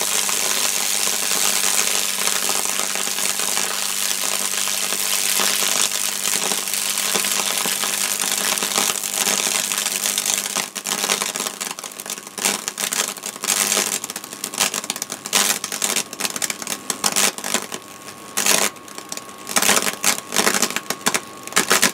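High-voltage arcing through bacon wired to a microwave oven transformer, the meat burning where the current passes: a continuous dense fizzing crackle that breaks up about ten seconds in into irregular sharp crackles and snaps.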